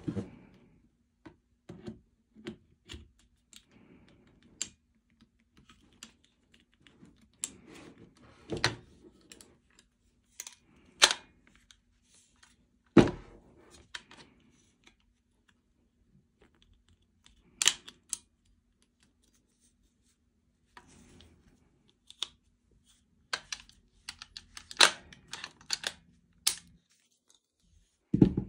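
Handling noise from a GBLS DAS M4A1 airsoft rifle as its upper and lower receivers are fitted together and the gun is moved about in its foam case: irregular sharp clicks and knocks, a few of them louder.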